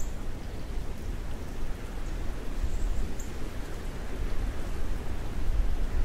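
Wind blowing steadily: a rushing hiss over a low rumble that swells and eases.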